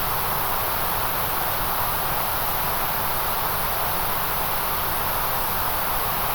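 Steady white noise: an even, unchanging hiss with no pauses or changes.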